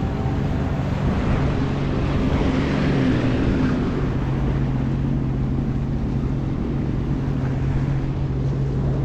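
Personal watercraft engine running steadily under way, with wind and rushing water noise; it swells slightly about three seconds in.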